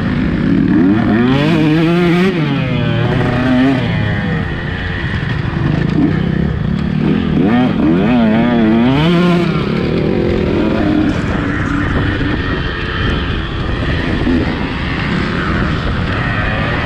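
Two-stroke motocross bike engine revving hard as it is ridden around the track. The pitch climbs and drops sharply about two seconds in and again around eight to nine seconds in, and runs steadier under throttle in between.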